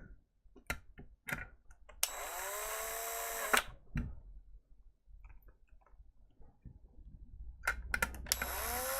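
Cordless screw gun driving small screws, running twice for about a second and a half, its motor whine rising as it spins up and then holding steady; a few light clicks of handling come before each run, the second run starting near the end.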